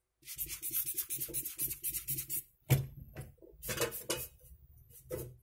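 Small hard parts of a dismantled CCTV bullet camera being handled: a dense run of scraping and rattling for about two seconds, then a sharp click, a few more knocks, and another click near the end.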